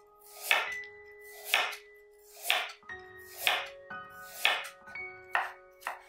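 Knife slicing a raw carrot on a bamboo cutting board: a crisp chop against the board about once a second, coming a little quicker near the end. Soft background music with bell-like mallet tones runs underneath.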